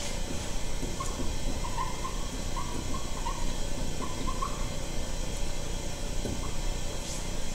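Steady background hiss with a handful of faint, short bird chirps in the first half.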